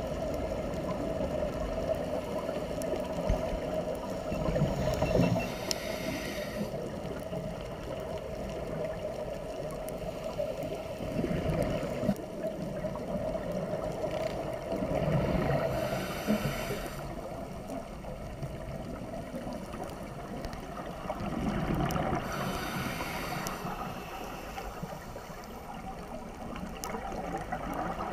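Scuba diver breathing through a regulator underwater: three breath cycles about six seconds apart, each a gurgle of exhaled bubbles and a short hiss of the regulator, over a steady hum.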